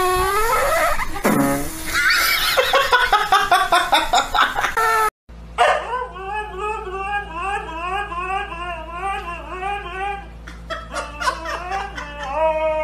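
Dogs vocalizing in turn: first an Italian greyhound-type dog yowling, then a white husky-type dog howling in a long, wavering, warbling voice.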